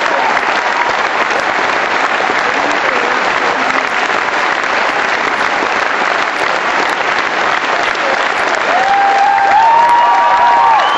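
Theatre audience applauding steadily at a curtain call, with a few long cheers held above the clapping near the end.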